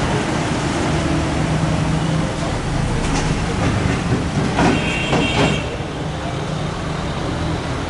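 Steady rumble and hiss of bakery background noise with a low hum. A few brief clatters and a short voice come about five seconds in.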